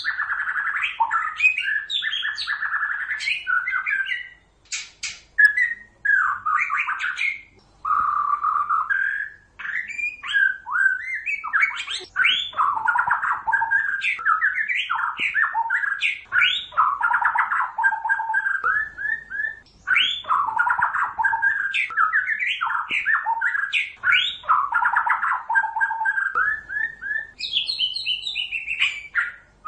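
White-rumped shama singing: a long run of varied song phrases of clear whistles, quick repeated notes and chattering sweeps, broken by short pauses.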